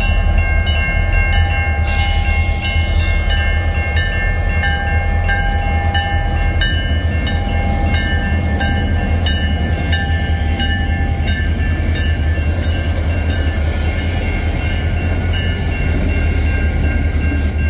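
Diesel freight train led by an old Illinois Central locomotive, running with a deep, steady rumble. Evenly spaced clicks come about three times a second, and several steady high tones sound over the rumble.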